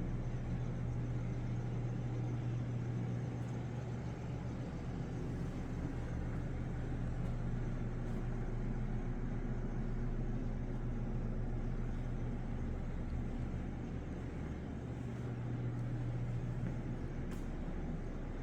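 A steady low mechanical hum that keeps one pitch and does not change in level.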